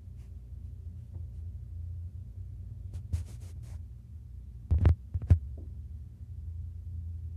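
A domestic cat purring close to the microphone, a low, steady, pulsing rumble. There are light clicks about three seconds in and two louder knocks about five seconds in.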